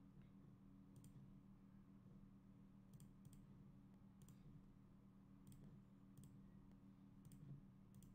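Near silence: about seven faint computer mouse clicks, spaced irregularly, over a low steady hum.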